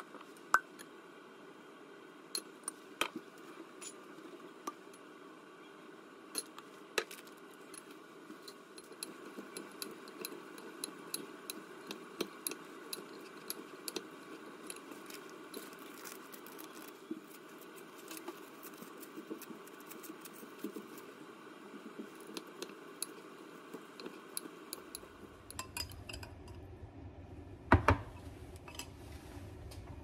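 Metal spoon and chopsticks clinking and tapping against a glass mixing bowl while shredded daikon is seasoned and tossed: scattered light clicks throughout, with a sharper knock near the end.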